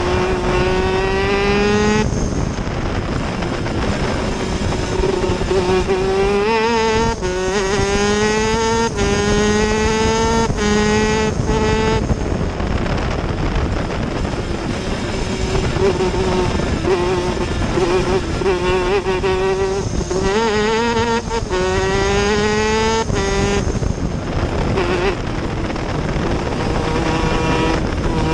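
Superkart's two-stroke engine at racing speed: the revs climb in a rising whine and drop sharply at each quick upshift, several times in a row. Midway the pitch holds and wavers for several seconds, then climbs through the gears again.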